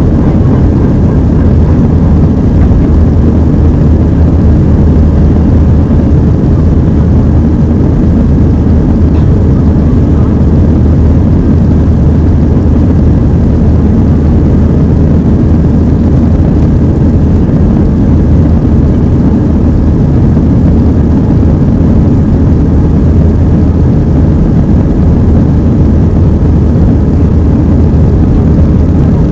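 Steady, loud cabin noise of a jet airliner climbing after takeoff: the engines' drone with a constant low hum and rushing air, heard from inside the passenger cabin.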